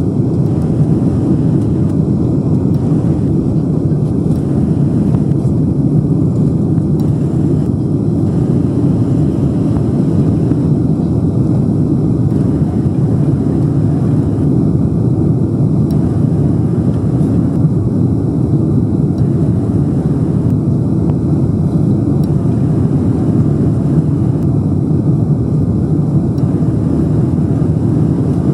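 Boeing 747-400 jet engines running, a loud, steady rumble that keeps the same level throughout.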